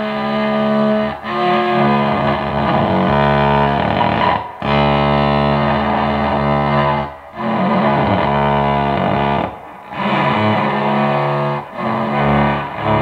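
Electric cello bowed in long held notes, each lasting about two to three seconds, with a short break between bow strokes.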